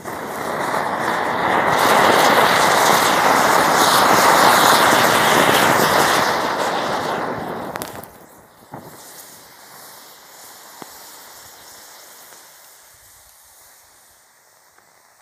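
Cone-shaped fountain firework (anar) spraying sparks with a loud, steady hiss and crackle. About eight seconds in it drops off sharply to a faint sputtering hiss that fades away as it burns out.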